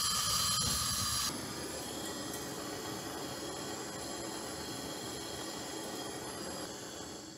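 Hand-held gas torch burning with a steady hiss, heating a seized line fitting on a steering box to free it. A whistling edge to the flame drops away and the sound gets quieter a little over a second in.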